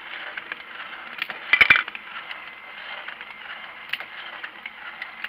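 3D-printed plastic cutaway model of a Subaru EJ20 flat-four, turned by a small electric motor in its oil pan, running with a steady whirring clatter of plastic pistons, cams and valves. A quick burst of sharp clicks about a second and a half in is the loudest part, with single ticks here and there.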